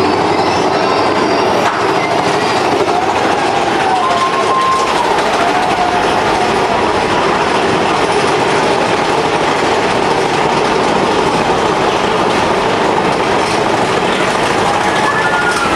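Big Thunder Mountain Railroad mine-train roller coaster running along its track, heard from on board: a loud, steady rumble and rattle of the cars, with faint wavering squeals coming and going.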